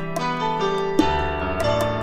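Raï music: a keyboard melody of held notes over a bass line, with a light ticking beat.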